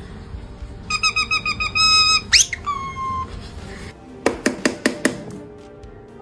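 A parrot mimicking electronic sounds: a quick run of high beeps about a second in, then a fast rising whistle that settles into a held tone. It is followed by a rapid series of sharp clicks.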